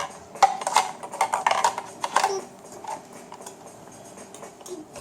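Hard plastic pieces of a toddler's VTech Drop & Go Dump Truck toy clattering and knocking, with a run of sharp clicks in the first couple of seconds, then a few fainter ticks.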